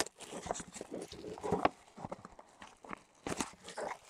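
Trading-card box and pack wrappers being handled and opened by hand: an irregular run of knocks, taps and crinkling.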